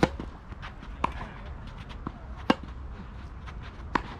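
Tennis ball struck by rackets in a rally: a serve at the start, then three more sharp pops of ball on strings, spaced roughly a second to a second and a half apart.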